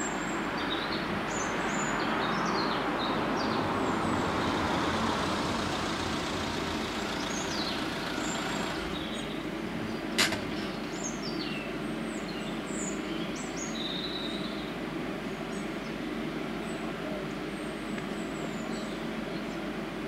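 Steady rumble of traffic, swelling during the first few seconds, with small birds chirping throughout and one sharp click about ten seconds in.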